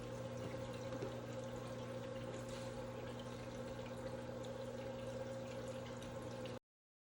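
Water running evenly down the glass face of a tabletop waterfall fountain, with a steady low hum under it, and cutting off abruptly near the end.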